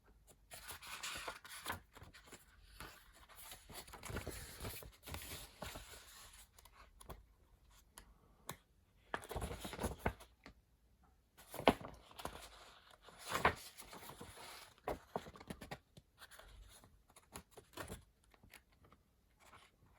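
Paper pages of a photocopied instruction manual being handled and leafed through: irregular rustling and scraping, with a couple of sharper knocks about halfway through.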